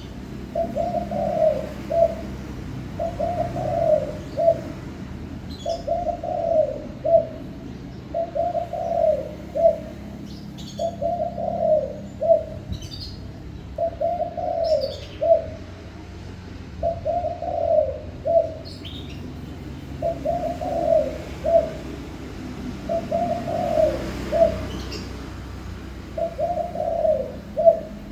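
Spotted dove singing its cooing song: the same low phrase of several coos, a longer swelling note followed by a short one, repeated steadily about every two seconds. Faint, brief high chirps from another small bird come in between.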